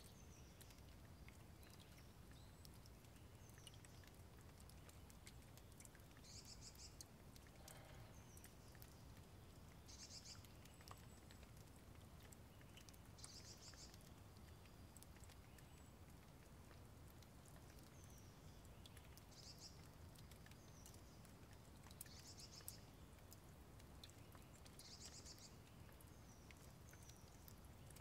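Faint outdoor birdsong: a short buzzy trill repeated every three seconds or so, with scattered brief chirps between, over a faint low background hum and scattered soft ticks.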